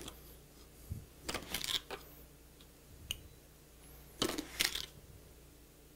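Kitchen utensils handled while sugar is measured out: short scrapes and clinks of measuring spoons and containers in a few brief bursts, about one, two and four seconds in.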